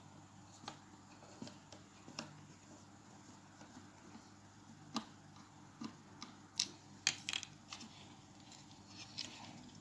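Faint, scattered clicks and ticks of a screwdriver turning a small screw out of a plastic device housing, with a few sharper clicks about halfway through and a little after.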